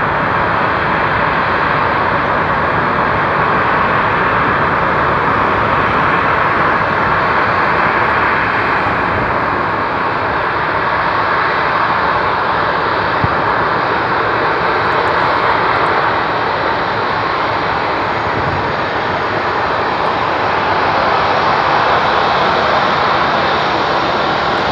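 Jet airliner engines running at taxi power close by: a loud, steady noise that holds even throughout.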